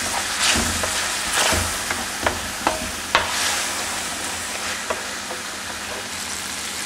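Tagliatelle and seafood sauce sizzling in a hot metal sauté pan while being stirred with a wooden spoon. There are several knocks and scrapes of the spoon against the pan in the first three seconds, then a steady sizzle.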